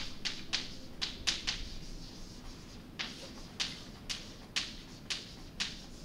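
Chalk writing on a blackboard: a run of about a dozen short, sharp taps and scratches as letters are written, with a pause of about a second around two seconds in.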